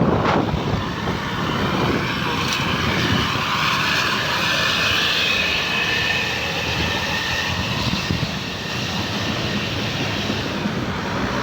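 Heavy vehicle, likely a bus, passing close: the pitch falls just after the start, then steady engine and road noise continues.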